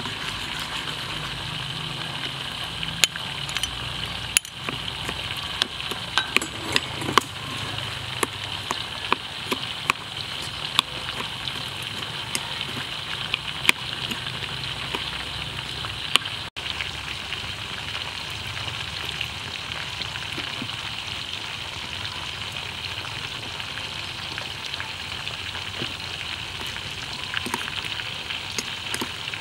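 Metal spoon clinking and scraping against a bowl while a sauce with sliced onion is stirred: sharp clicks, many in the first half and a few near the end, over a steady hiss.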